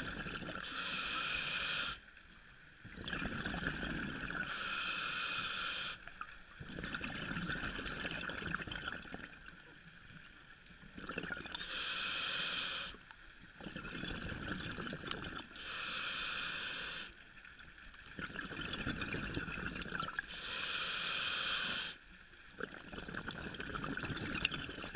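Scuba diver breathing through a demand regulator, recorded underwater. A hissing inhalation comes about every four seconds, each followed by a lower rush of exhaled bubbles.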